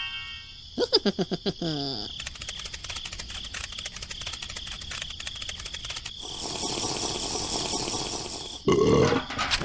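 A string of added cartoon-style sound effects. First a quick burst of swooping, warbling tones, then a rapid even run of clicks for about four seconds. After that a hiss like water being stirred, and a brief louder low sound near the end.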